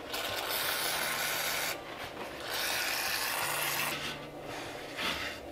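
Aerosol cleaner sprayed onto a brake backing plate in three hissing bursts: two of about a second and a half, then a short one near the end.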